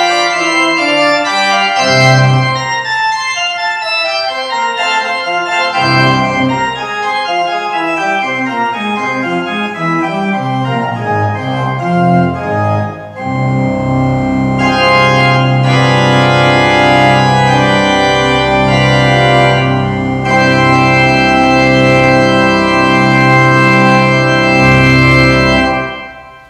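Church organ playing a prelude in sustained chords and moving lines. About halfway through it drops back briefly, then comes in fuller with a long-held low bass note, and the final chord is released near the end.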